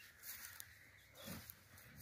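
Near silence, with two faint, brief sounds, one just after the start and one a little past a second in.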